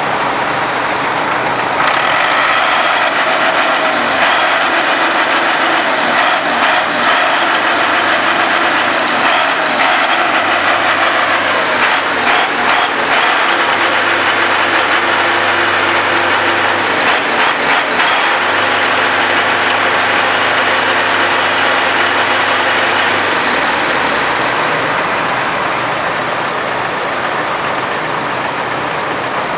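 Heavy farm machinery engines running steadily, with a deep engine hum under a dense mechanical clatter and whine.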